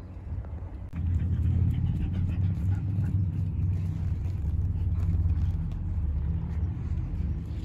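Steady low engine rumble that starts about a second in, like a motor vehicle running nearby, with faint scattered clicks over it.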